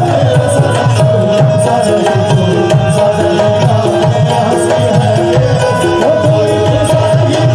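Qawwali instrumental passage: a harmonium holds a steady note over a fast tabla rhythm, with a short higher note repeating about every two-thirds of a second.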